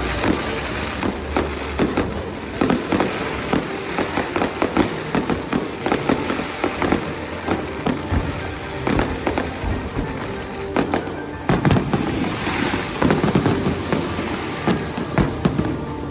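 Aerial fireworks display: a dense, continuous run of bangs and crackling bursts, heaviest about three-quarters of the way through and stopping near the end, with music playing underneath.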